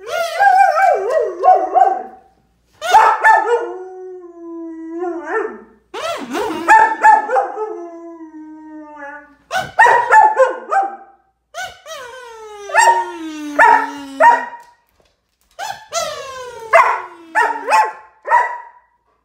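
A German Shepherd whining and howling in a string of bursts: drawn-out howls that slide down in pitch, mixed with short high yips. Each burst breaks off suddenly.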